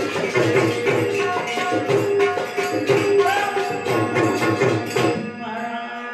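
Indian devotional music with tabla and jingling hand percussion on a steady beat under held melody notes. It drops away a little after five seconds in.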